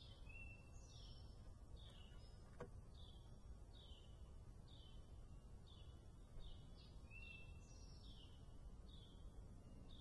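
Faint backyard birdsong: a short, high, down-slurred chirp repeated steadily every half-second or so, with a few higher notes and two longer whistles mixed in, over a steady low outdoor rumble.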